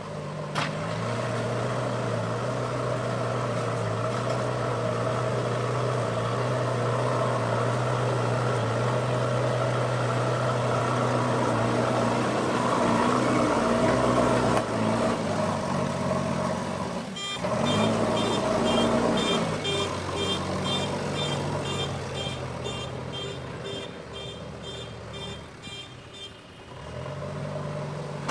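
JCB backhoe loader's diesel engine running under load, its note rising and falling as the machine works. From about two-thirds of the way in, a reversing alarm beeps steadily for several seconds.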